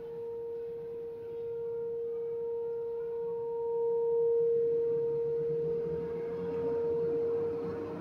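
Federal Signal 2001-130 electromechanical siren sounding its steady alert tone, one held pitch that swells louder and fades as the rotating horn sweeps past, about every three seconds. A low rumble rises under it in the second half.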